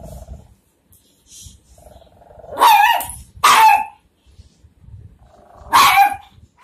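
Chihuahua growling and barking at its own reflection in a mirror. A low growl comes at the start, then a growl leads into two sharp barks about a second apart in the middle, and another growl runs into a third bark near the end.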